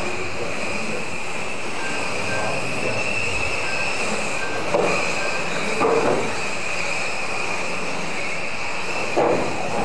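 Several electric RC cars' motors whining together as they race round the track. There are short louder bursts about five, six and nine seconds in.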